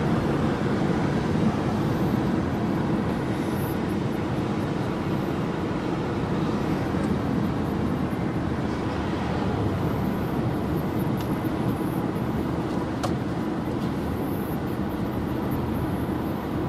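Steady road and engine noise of a moving car, heard from inside its cabin.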